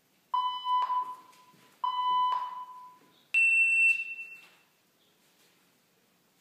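Workout timer app on a tablet sounding its start countdown: two lower beeps, then a higher start tone about a second and a half later, each ringing and fading out.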